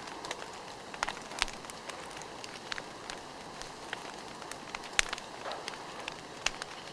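Campfire crackling: a steady hiss with sharp pops from the burning wood every second or so, the loudest about five seconds in.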